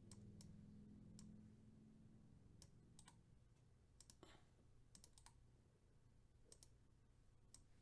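Near silence: quiet room tone with about a dozen faint, irregularly spaced clicks.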